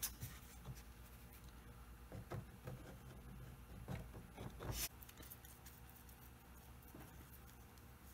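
Faint small clicks and rustles of a plastic Titebond II wood-glue bottle being handled and squeezed to put glue into a butterfly-key recess, from about two seconds in until about five seconds in.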